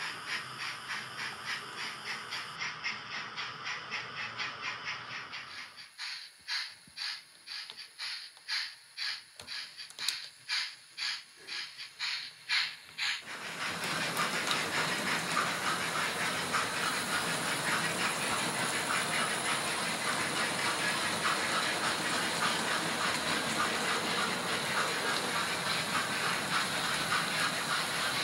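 Hornby 00-gauge model steam locomotives with TTS sound decoders. The steam chuffing is fast at first, then slows about six seconds in to about two beats a second. About thirteen seconds in it gives way to a steady hissing rattle of the trains running on the track.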